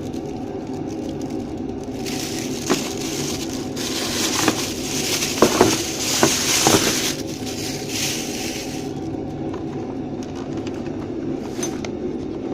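Industrial heat gun's motor running with a steady hum, with crackling and rustling from handling, and hiss swelling between about two and seven seconds in.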